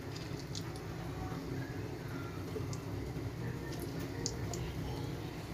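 Samosas deep-frying in hot oil on a medium-low flame: a steady sizzle with scattered small pops and crackles, over a steady low hum.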